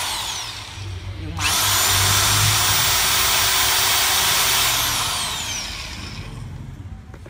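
Classic CLA-5426 1010 W SDS rotary hammer drill test-run: a brief blip of the trigger, then the motor spins up and runs loudly for about three seconds before the trigger is released and it winds down.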